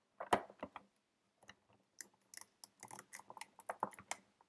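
Small plastic LEGO pieces clicking and tapping as corner pieces are pressed onto the studs of a LEGO frame around a touchscreen: irregular sharp clicks, few at first and quicker from about halfway through.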